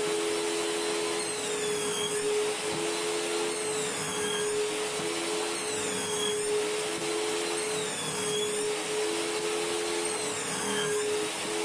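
Table saw running with a steady whine, its blade cutting a shallow rabbet along MDF drawer sides; a lower tone comes and goes about every second and a half as the blade takes the load.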